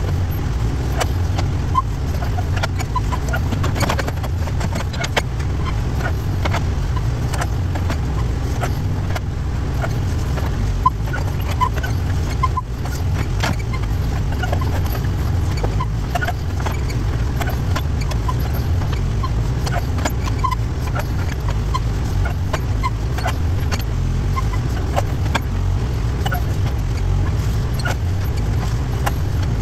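Backhoe engine running steadily at working speed while the boom and bucket dig and swing, with short faint chirps and clinks scattered through and a few brief knocks.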